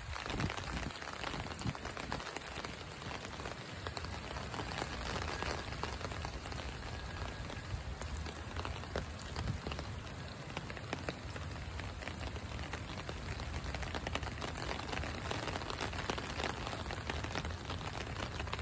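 Steady rain falling onto a flooded street and lawn: a dense, even patter of drops hitting standing water.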